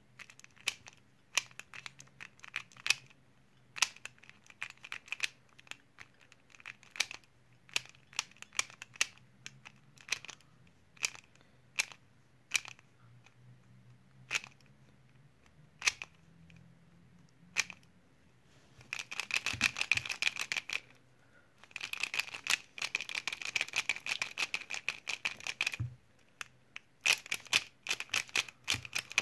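Plastic Pyraminx puzzle being turned by hand: separate clicks of single turns for most of the first half, then two stretches of fast, dense clicking as it is turned rapidly, with a few more clicks near the end.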